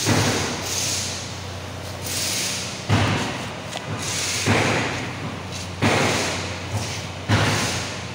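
Workshop noise: five loud, sudden thuds or bangs spaced unevenly over about seven seconds, each trailing off with a hiss, over a steady low hum.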